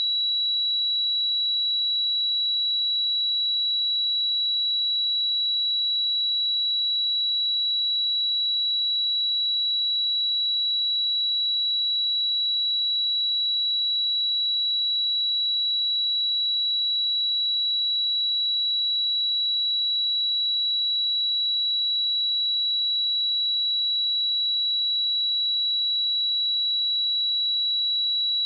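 A pure 3912 Hz sine-wave test tone: a single steady, high-pitched beep held at a constant level.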